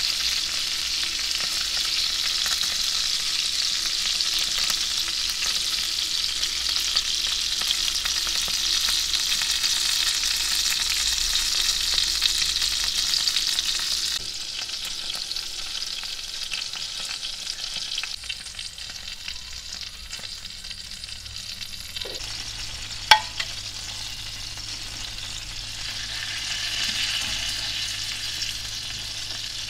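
Oil and chicken juices sizzling in a glass baking dish as a whole chicken roasts in the oven, a steady hiss that drops in level about halfway through. A sharp click comes in the second half.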